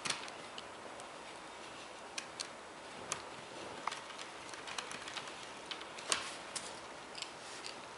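Small screwdriver driving screws into a laptop screen's metal side bracket, giving sparse, irregular light clicks and ticks, the sharpest about six seconds in.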